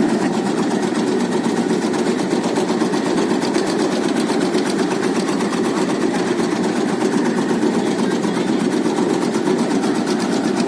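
Motor-driven tobacco cutting machine running steadily, a fast, even mechanical rattle.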